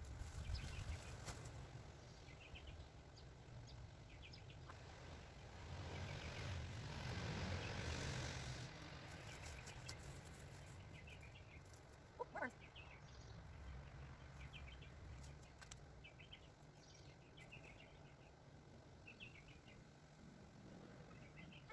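Faint birds chirping, with a rustle of dry pea vines being pulled and handled, loudest about six to nine seconds in.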